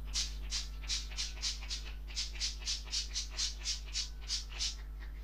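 Pump bottle of makeup setting spray misting in quick short spritzes, about four a second.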